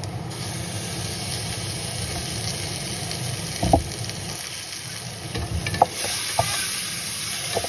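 Diced onions sizzling as they fry in an aluminium pressure cooker pot while being stirred, with a few sharp clicks of utensils against the pot; the loudest comes about six seconds in.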